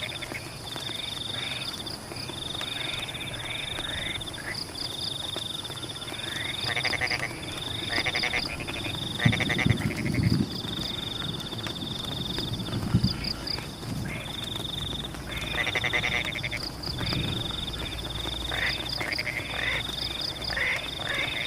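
A chorus of frogs in a rain-soaked rice field, calling over and over in short pulsed croaks. A high trill starts and stops every second or so, with quick pips above it. A few louder, deeper sounds come about halfway through, over the even hiss of rain.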